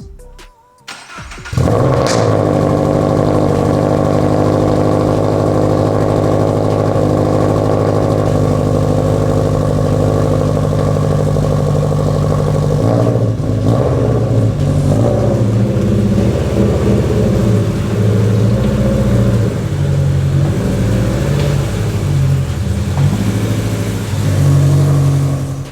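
Toyota GR86's 2.4-litre flat-four engine starting about a second and a half in, then idling steadily. From about halfway on, its note rises and falls unevenly.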